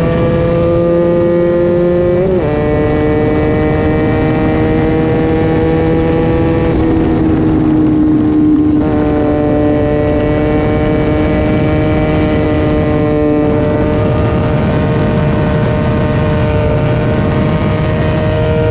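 Sport motorcycle engine with an aftermarket exhaust pulling at steady revs on the move. The note drops sharply about two seconds in, as at an upshift, then holds nearly steady.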